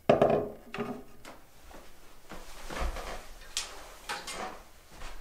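Metal fly reels and a fly rod being handled and moved on a wooden tabletop: a series of knocks, bumps and small clatters, the loudest just after the start.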